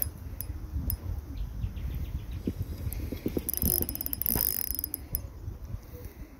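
Fishing reel clicking, with a fast run of sharp clicks for about a second midway and fainter ticks before it, while a hooked carp bends the rod. A low rumble of wind on the microphone runs underneath.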